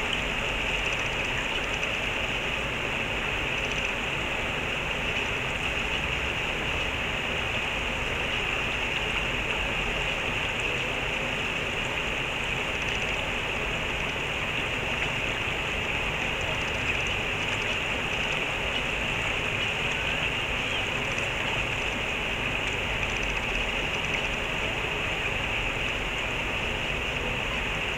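Steady rush of flowing stream water, an unbroken hiss of current.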